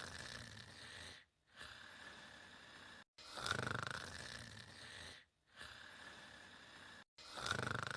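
A person snoring: a loud, vibrating snore about every four seconds, each followed by a softer breath and a short pause. Brief dead gaps just before each snore suggest a looped recording.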